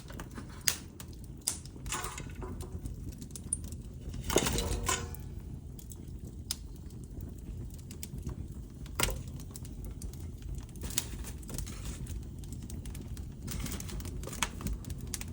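Wood fire crackling: irregular sharp pops and snaps over a low rumble of burning flames, with a louder flare of crackling about four seconds in.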